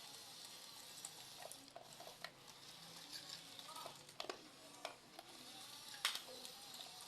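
Toy bulldozer being handled, with faint scraping and scattered small clicks over a steady hiss, and a sharper click about six seconds in.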